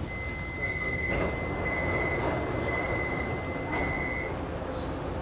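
Metro train door warning beeps as the doors open: four high beeps about a second apart over a fainter steady tone, ending near the end, with a knock about a second in.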